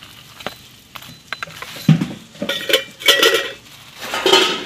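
Steel kitchenware clinking and clattering as a steel spatula and rotis go into a stainless-steel casserole pot. A few light taps come first, then a thump about two seconds in, then runs of ringing metal clatter, the last near the end.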